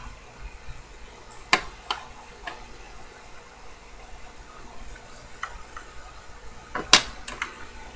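Small, faint metallic clicks and ticks of a steel blade being worked under the edge of a watch movement's bridge, with two sharper clicks about a second and a half in and near the end.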